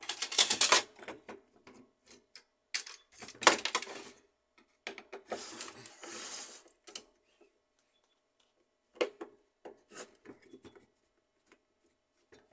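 Screwdriver and plastic parts clattering, scraping and clicking as screws are worked out of an HP LaserJet 1300 fuser unit and its housing is handled. Three busy stretches of clatter come in the first seven seconds, then a few scattered light clicks.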